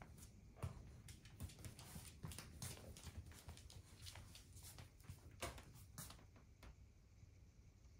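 Faint, irregular clicking of a Shetland sheepdog's claws on a hardwood floor as she walks about, with a couple of sharper taps past the middle.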